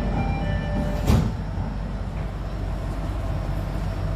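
MRT Jakarta train's door-closing chime beeps in the first second. About a second in, the car's sliding doors shut with one loud thump, and then the steady low rumble of the train car carries on.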